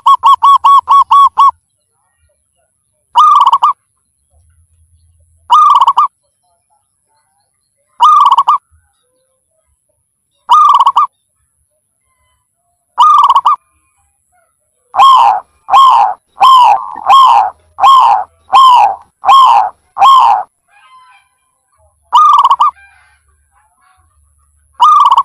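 Zebra dove calling in repeated short coos. A quick run of notes opens, then single notes come every two to three seconds, then a run of about ten notes in the middle, then more single notes.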